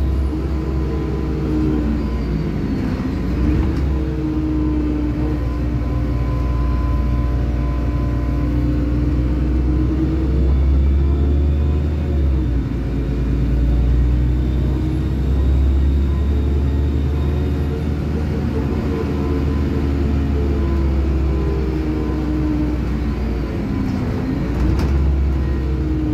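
A LiAZ-5292 city bus running, heard from inside its cabin: a steady low engine and drivetrain rumble and hum whose pitch drifts up and down with the bus's speed, dipping sharply three times.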